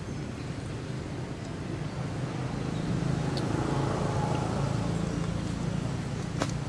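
A motor engine running with a low, steady hum that grows louder about two seconds in and eases off near the end, with a single sharp click shortly before it eases.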